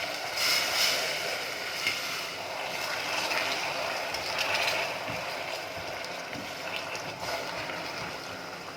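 Hot melted sugar in a pan hissing and sizzling steadily as the water-based herbal infusion is poured into it.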